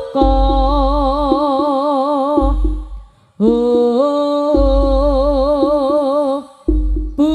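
Javanese jaranan ensemble music. A lead melody holds two long, wavering notes of about three seconds each over quick drum strokes and deep low beats, with a short break between the notes.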